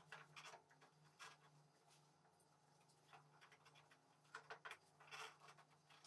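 Near silence with faint, scattered clicks and scrapes of a screwdriver and gloved hands working a hose clamp on a scooter's fuel line, a little busier near the end, over a faint steady low hum.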